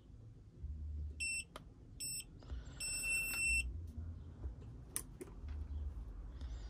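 Electronic start-up beeps from a Boatman Actor bait boat and its remote handset as they are switched on: two short high beeps, then a longer one about three seconds in. A couple of sharp clicks fall between them.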